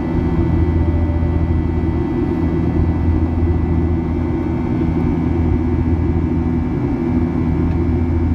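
Steady cabin noise of a Boeing 737-800 in flight, heard from inside the cabin: a constant low drone from its CFM56 jet engines mixed with the rush of air, with a few faint steady tones above it.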